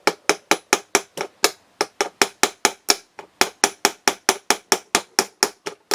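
Small hammer tapping a steel pin into a Walther P88 Compact pistol frame: rapid, light, sharp taps, about four or five a second, with two brief pauses. The pin is being started into its hole to rest on the sear spring's leg.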